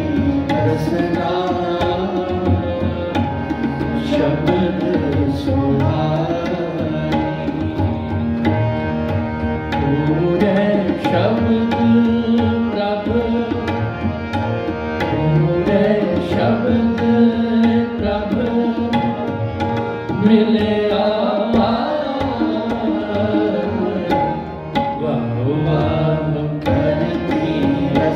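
Sikh kirtan: a shabad sung to two Nagi harmoniums playing held reed chords, with tabla keeping a steady rhythm of quick strokes.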